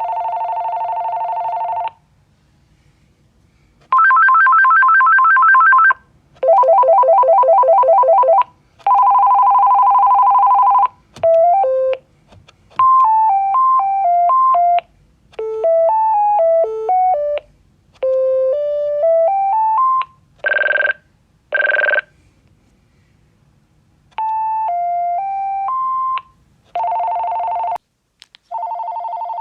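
AT&T DLP73510 cordless telephone sounding its selectable ringers one after another, each a second or two long with brief pauses between. Some are two-tone warbling rings, some fast trills, and several are short electronic melodies of single beeping notes.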